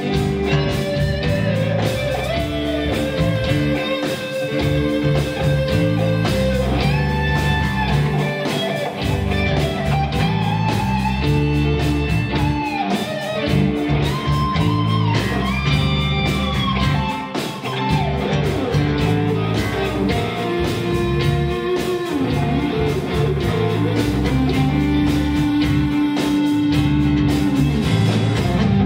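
Live rock band playing an instrumental passage: electric guitar with long held notes that bend up and down, over bass and drums.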